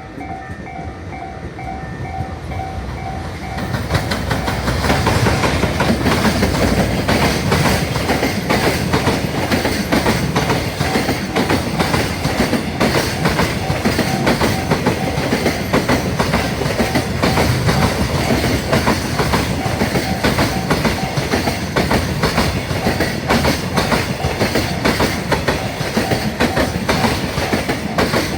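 A Japanese railway crossing alarm dings steadily. About four seconds in, a long freight train passes close by and drowns it out. The train's wheels clatter continuously over the rail joints to the end.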